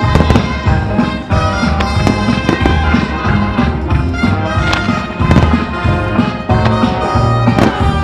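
Fireworks firing, with sharp bangs and crackling, over loud pyromusical soundtrack music.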